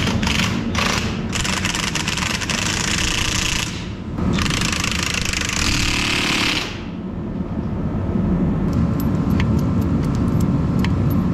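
An impact wrench hammering in three spells of a second or a few seconds each, then stopping about two-thirds of the way through, leaving a steady low hum with faint ticks.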